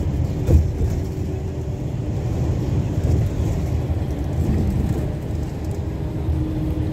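Road noise heard inside a car driving at speed: a steady low rumble of tyres and engine, with a brief thump about half a second in.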